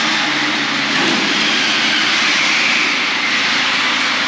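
Several battery-powered electric RC cars racing together, their motors whining continuously, the pitch rising and falling as they speed up and slow down, on a concrete parking-garage deck.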